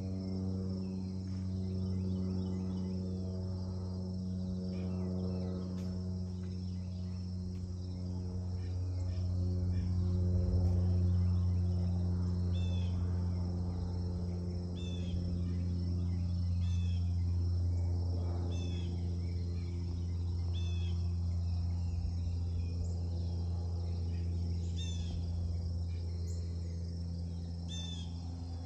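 Cessna 208B Grand Caravan turboprop flying high overhead: a steady low propeller drone that swells a little about ten seconds in, then eases. Faint high chirps repeat every couple of seconds behind it.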